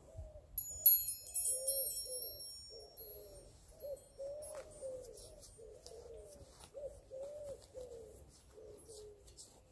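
A pigeon cooing: a steady run of low, rounded, rise-and-fall coos, one after another. During the first few seconds a small songbird sings high, thin notes over it, louder than the cooing.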